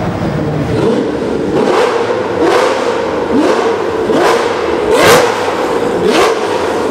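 Pagani Zonda's V12 engine revved in a series of about seven sharp blips, each rising quickly in pitch, under a second apart. The loudest comes about five seconds in, and all of it echoes inside a road tunnel.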